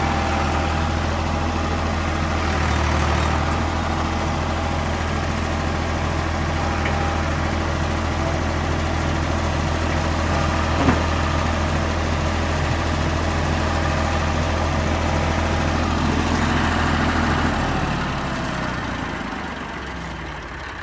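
Ford compact tractor engine running steadily as the tractor is driven across grass, with one sharp knock about eleven seconds in. The engine note drops away near the end as the tractor is throttled back.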